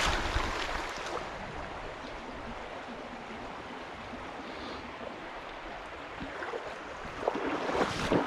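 Creek water rushing steadily, with a few light knocks near the end.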